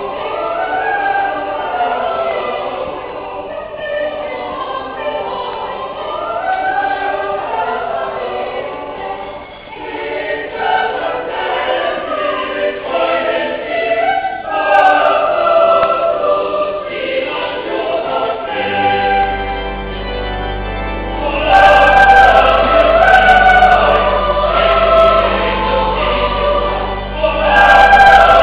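Church choir singing a Christmas carol in a stone cathedral. A steady low bass note comes in about two-thirds of the way through, and the singing grows louder soon after.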